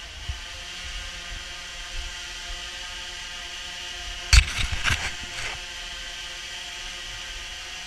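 DJI Phantom 3 Professional quadcopter hovering, its propellers making a steady whirring hum with several even tones. A short cluster of knocks and rustles sounds a little past halfway.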